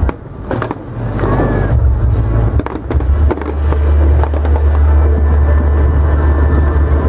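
Fireworks going off: several sharp bangs in the first three seconds, then a steady low rumble.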